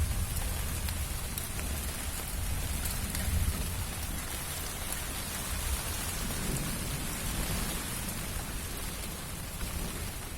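Steady downpour of rain in a squally windstorm, with a low rumble that is strongest at the start and eases off over the first few seconds.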